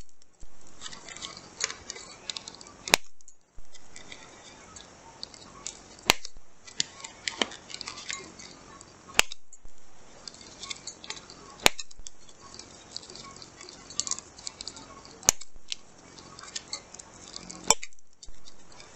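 Handheld one-hole paper punch snapping shut through a laminated sheet, a sharp click six times at about three-second intervals. The stiff plastic-coated sheet crinkles between the clicks as it is moved to the next hole.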